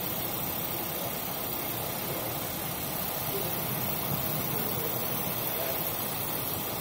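Steady rushing noise of storm wind and heavy seas around a container ship, an even hiss with no distinct strikes or tones.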